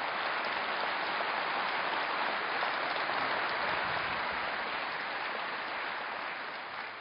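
Audience applauding, steady and then dying away near the end.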